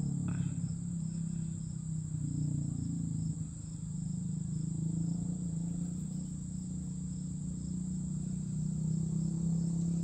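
Crickets and other insects calling steadily: a continuous high trill with a softer chirp repeating about twice a second, over a low steady hum.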